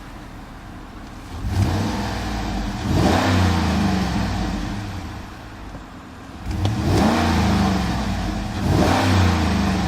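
2012 GMC Yukon Denali's 6.2-litre V8 revved in two bursts about five seconds apart. Each burst climbs twice in quick succession, then winds back down toward idle.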